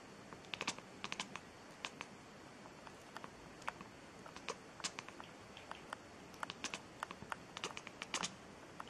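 Irregular light clicks and taps, some single and some in quick clusters of two or three.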